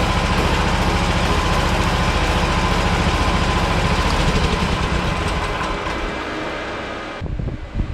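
AGT YSRT14 mini skid steer's 420 cc, 15 horsepower gasoline engine running steadily with an even low pulse, growing somewhat quieter over its last few seconds before cutting off abruptly near the end.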